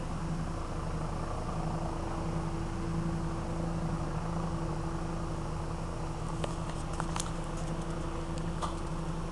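Steady low mechanical drone of an engine with a fast flutter in it, and a scatter of faint sharp clicks in the second half.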